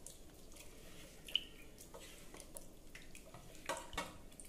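A hand squeezing and mashing a wet mixture of crushed chillies and garlic in water in a small steel bowl: faint squelching and dripping, with a few short clicks, the sharpest about a second in and near the end.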